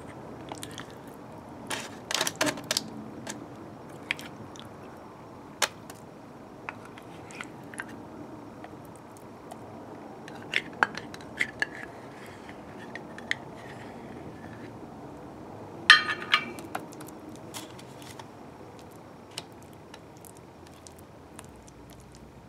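Spatula scraping and tapping against a small metal measuring cup as sticky raspberry preserves are scooped out and dabbed onto dough: scattered light clicks and scrapes, with louder clusters about two seconds in and again about sixteen seconds in, over a faint steady background hiss.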